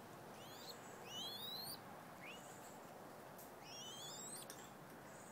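Mourning dove squab, about three and a half weeks old, giving faint high squeaky begging calls while being bottle-fed: quick rising whistles in about four short clusters.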